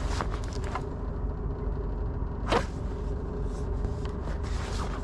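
A vehicle's engine runs with a steady low rumble while it moves slowly along a rough dirt track, with small rattles and clicks from the ride. A single sharp knock about halfway through is the loudest sound.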